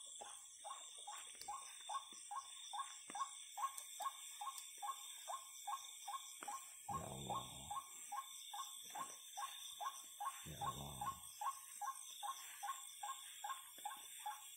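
A night animal calling a steady series of short, slightly falling notes, about three a second, over a constant high-pitched insect chorus. Two brief low rumbles come about seven and ten and a half seconds in.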